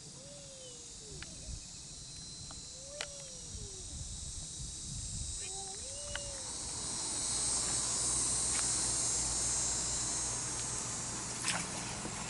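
An outdoor insect chorus: steady high-pitched buzzing and trilling that swells about halfway through. Three low calls, each rising then falling, come about three seconds apart early on. A few faint clicks are scattered through it.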